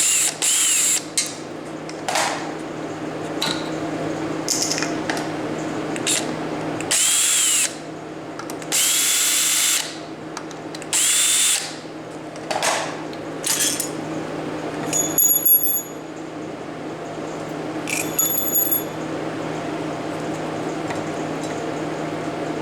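Cordless drill/driver run in a handful of short bursts, its whine rising in pitch as it spins up, with a few clicks between runs.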